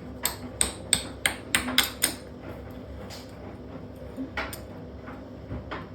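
A quick run of sharp metallic knocks, about three a second for two seconds, then a few single knocks, from a washing machine's metal cabinet and parts being struck while it is broken apart.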